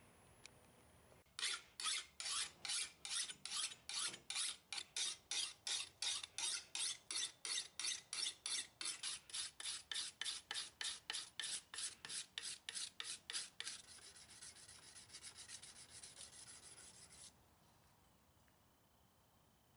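A hand-held abrasive tool rasping back and forth along the steel of a hand-forged kukri blade made from lawnmower-blade steel, about three strokes a second for some twelve seconds. It then switches to quicker, lighter strokes for a few seconds before stopping.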